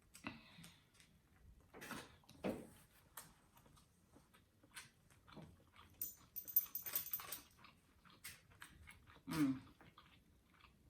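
Close-miked eating sounds: chewing and mouth noises with scattered small clicks of food and utensils, and two short hums, one about two and a half seconds in and one near the end.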